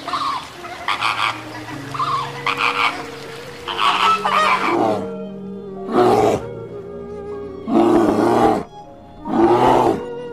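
A large wild animal roars in short bursts over background music with a held drone. There are several shorter calls at first, then three louder roars in the second half, each under a second long.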